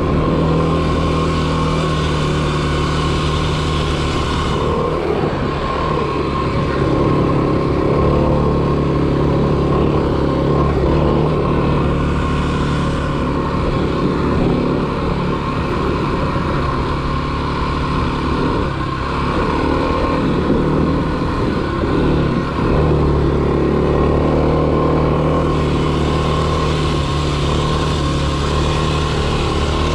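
A 2021 Kawasaki KLX300 dirt bike's single-cylinder four-stroke engine running under throttle while being ridden, its note wavering as the throttle changes. A rushing hiss rides over it, easing off about five seconds in and returning near the end.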